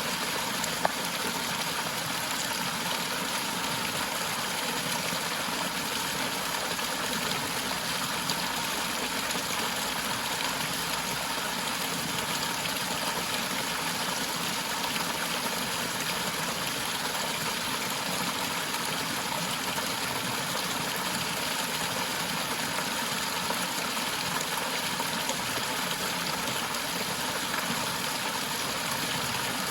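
Waterfall: water falling and rushing steadily, an even hiss with no change, and one brief click about a second in.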